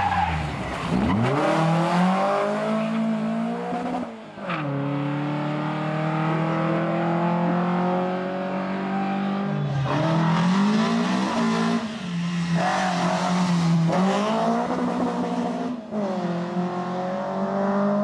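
Volvo rally car's 16-valve twin-cam engine at high revs, its pitch climbing steadily as the car accelerates along the stage. The pitch falls sharply in the first second, and the sound breaks off and starts again three times, at the video's cuts between passes.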